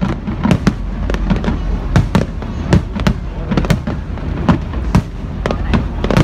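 Fireworks going off in a rapid, irregular string of sharp bangs and crackles, several a second, over a continuous low rumble of distant bursts.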